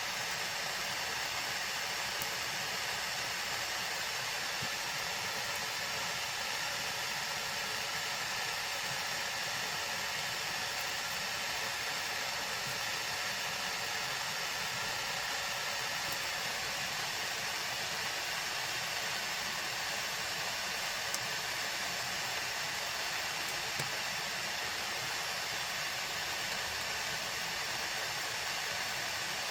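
Steady hissing rush of a heating tool, running without change as it heats the sealing compound for a crack in a powder horn.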